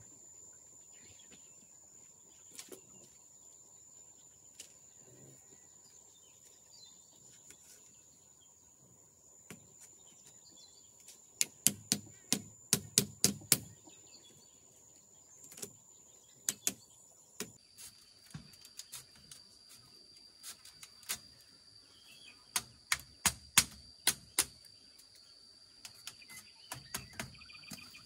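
Sharp knocks of work on a bamboo fence, coming in quick runs of about four or five strikes a second around the middle and again near the end. A steady high-pitched tone sounds behind them.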